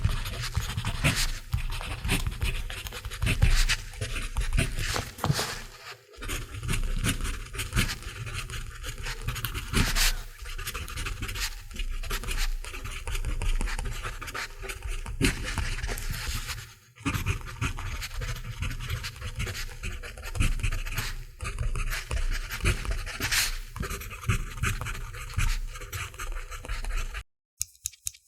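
Mechanical pencil writing on paper: a run of quick scratchy strokes of the lead. It pauses briefly twice and stops just before the end.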